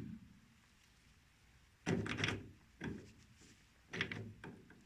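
A few short clunks and knocks from a heavy metal part being handled, in three brief clusters about two, three and four seconds in.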